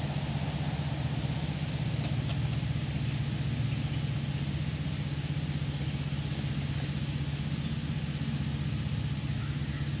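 A steady low mechanical hum, like a motor running, with no change in pitch or level.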